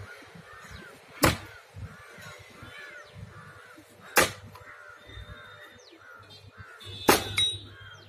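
Hand axe splitting firewood logs: three sharp chopping blows about three seconds apart.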